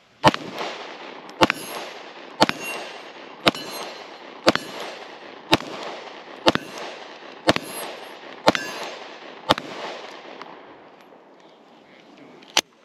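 Sig Sauer P365XL 9mm pistol fired ten times at a steady pace of about one shot a second, each shot trailed by echo. One more sharp report comes near the end.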